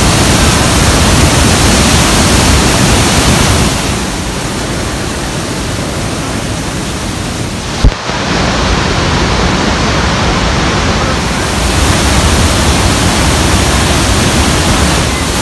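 Loud, steady rush of Niagara's Bridal Veil Falls crashing onto the rocks beside the walkway. It drops a little about four seconds in, with a brief knock just before eight seconds, then comes back up.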